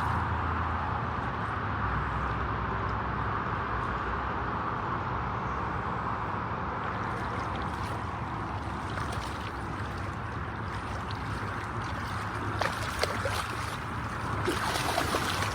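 Water sloshing and trickling around a small fishing boat over a steady low hum, with a few sharp knocks and splashes near the end.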